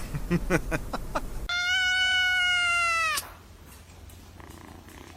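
A cat giving a few short cries, then one long, loud, drawn-out meow that holds its pitch and drops at the end.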